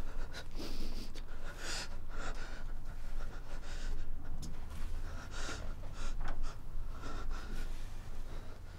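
A man breathing hard in ragged, repeated gasps, about one every second, over a low steady hum.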